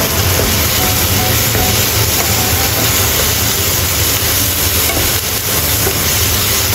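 Diced red onion and tomato sizzling in hot oil in a nonstick frying pan as they are stirred with a wooden spatula: a steady hiss.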